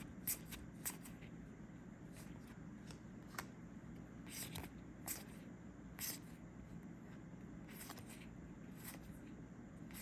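Trading cards being handled and flipped through one at a time: short, faint card slides and flicks at irregular intervals.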